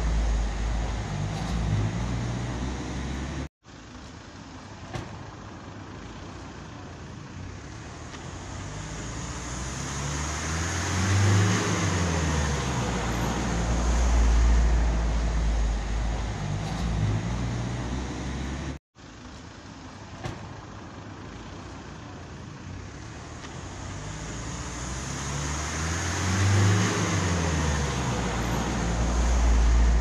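Road traffic: a motor vehicle's engine and tyre noise swells as it passes, its engine note bending up and then down, and the same pass comes round twice about fifteen seconds apart. The sound cuts out abruptly for an instant before each pass.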